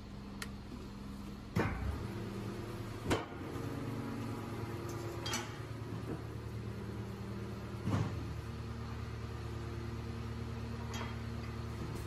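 Rotary packer of a 2003 Hino Dutro garbage truck running off the diesel engine's hydraulics after its rear control button is pressed. A steady engine drone grows louder with a clunk about a second and a half in, then further clunks every two to three seconds as the packer blade turns through the hopper.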